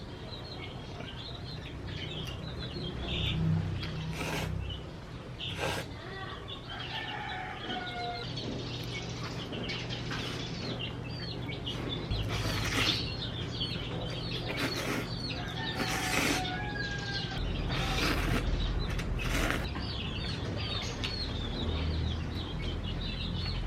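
Birds chirping over and over, with some clucking calls and several sharp knocks scattered through.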